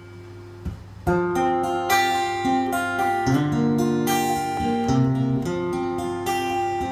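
Acoustic guitar playing the intro of a ballad: after a faint low hum and a single plucked note, chords start about a second in and ring out steadily.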